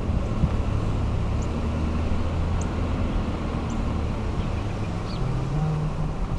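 A motor vehicle's engine runs at low speed, a steady low hum that steps up slightly in pitch about five seconds in. A few faint, short high chirps sound over it.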